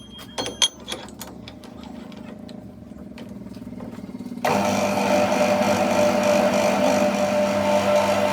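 A few ringing metal clinks, then about four and a half seconds in a machine switches on abruptly and runs with a steady hum.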